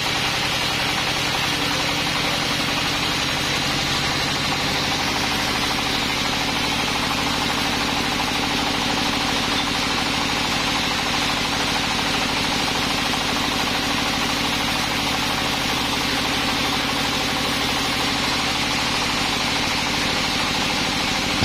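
Sawmill engine running steadily at an even speed, with a constant hiss over it.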